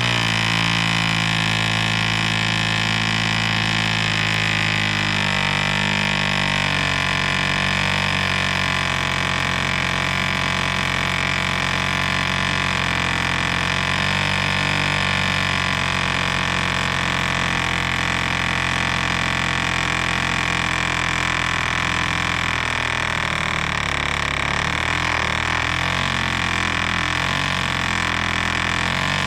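1947 Drone 4.85 cc diesel model airplane engine running steadily with a 14x6 propeller: a loud, even buzz whose pitch wavers slightly about five seconds in and again near the end.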